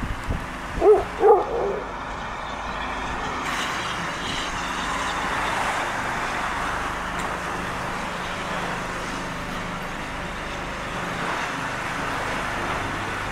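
A dog barks twice, sharply, about a second in, with a weaker bark just after. Then comes a steady rumble from the passenger train of coaches moving off along the line.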